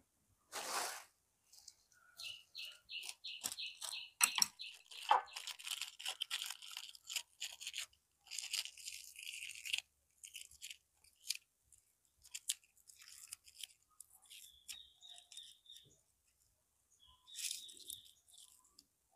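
Thin plastic wrappers crinkling and rustling in a string of quick, irregular crackles as pieces of candy are wrapped by hand and the ends twisted shut. A bird chirps in short, quickly repeated notes a couple of times.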